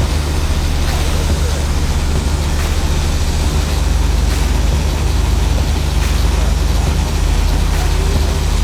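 Heavy job-site machinery engine running steadily, a constant low drone with a noisy wash over it.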